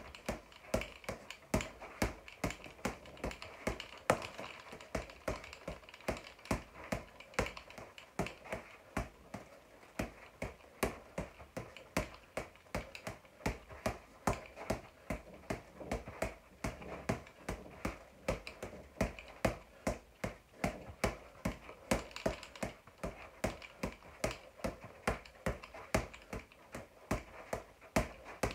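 Boxing gloves punching a floor-to-ceiling ball in a steady run of sharp smacks, about two to three a second.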